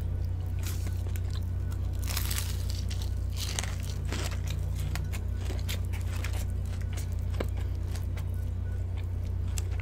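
Crunchy bites and chewing of crispy Korean fried chicken, with a few sharp crunches of the coating, loudest about two seconds in and again around three and a half seconds. A steady low hum runs underneath.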